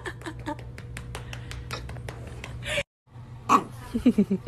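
Light scratchy clicking and rustling, then after a brief break a dog's quick run of short whines and yips.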